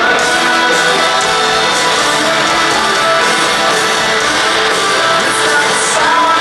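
Rock band playing live, with guitars strumming through an instrumental passage and no singing.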